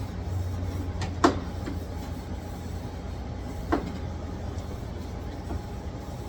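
Door-lock hardware being fitted by hand: two sharp clicks about two and a half seconds apart, over a steady low hum.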